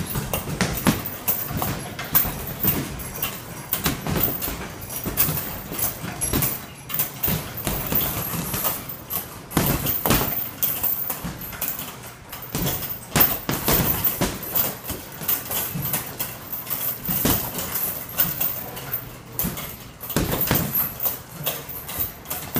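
Boxer's footwork while shadowboxing: quick, irregular steps and shuffles of feet on rubber gym mats, a run of sharp taps with a few louder ones about ten, thirteen and twenty seconds in.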